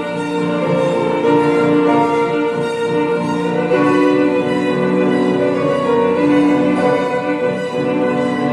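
Violin and grand piano playing together: the violin carries a melody in long held notes over the piano accompaniment.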